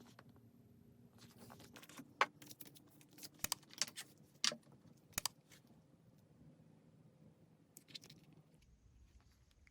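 Handling noise: a quick run of sharp clicks and light rattling of small hard objects, busiest between about two and five and a half seconds in, over a faint low hum.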